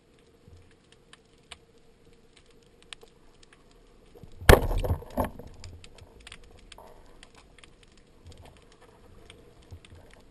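Wooden band-powered speargun fired underwater: a sudden sharp shot about four and a half seconds in, ringing briefly, with a second knock just after. Faint scattered clicking runs through the rest.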